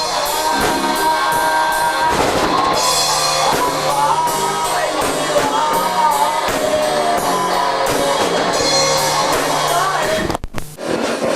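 Loud rock music: a band with drum kit, guitar and a singing voice, dropping out briefly near the end before the band comes back in.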